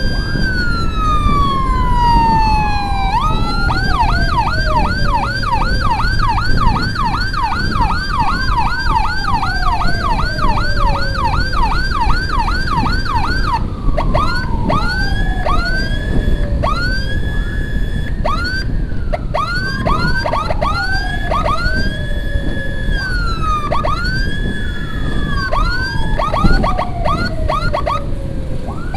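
Electronic emergency siren sounding continuously and switching modes. A slow falling wail runs under a fast yelp of about three cycles a second for the first ten seconds or so, then gives way to short rising chirps and whoops. Under it runs the low rumble of wind and traffic from riding in an escort.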